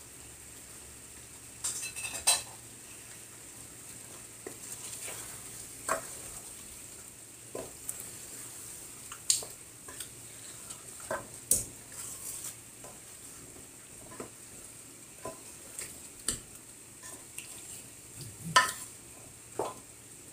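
Wooden spatula stirring chicken and potato pieces in a large aluminium pot, with irregular knocks and scrapes against the pot every second or so. A faint steady sizzle runs underneath.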